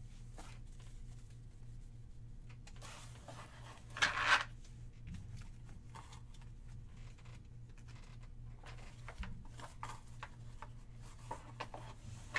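Trading cards and a cardboard card-storage box being handled: light rustling, scraping and small clicks of cards and cardboard, with one louder brushing rustle about four seconds in. A steady low hum runs underneath.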